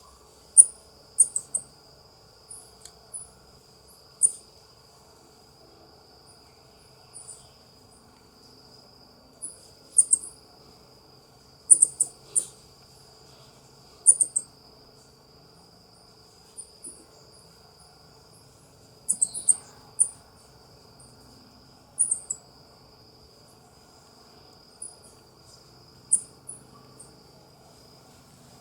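South American coati (Nasua nasua) giving short, high-pitched chirps, singly or in quick runs of two or three, every couple of seconds, over a steady high insect drone.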